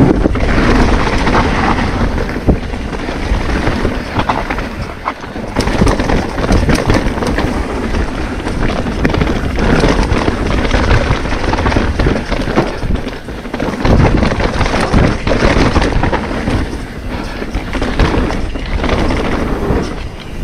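Mountain bike riding down a dirt forest trail: tyres rumbling over dirt and roots, with frequent clattering knocks from the bike and wind buffeting the microphone.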